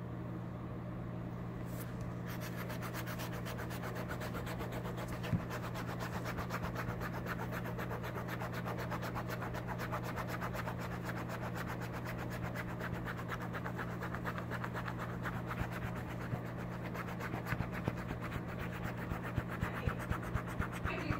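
A utility knife blade scraped in quick short strokes across a cloth mouse pad, rasping off built-up grime; the scraping starts about two seconds in, with a few sharper clicks near the end. A steady low hum runs underneath.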